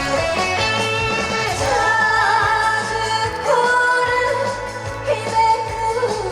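Trot song sung live by a female singer over loud backing music with a steady beat, her held notes wavering with vibrato.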